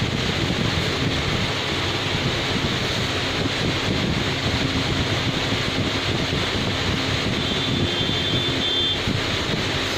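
Steady street traffic noise, with a brief high-pitched tone lasting about a second and a half near the end.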